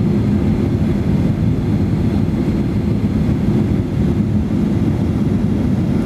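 Steady low rumble inside the cabin of a Boeing 737-800 on approach, from its CFM56-7B engines and the air rushing past the fuselage.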